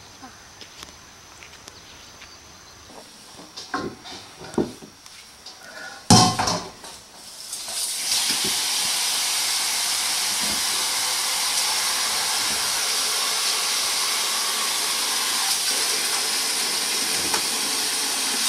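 A few knocks and one sharp clatter of kitchenware, then a kitchen tap running steadily into a bowl or sink from about eight seconds in, filling it with water for seeding pomegranates underwater.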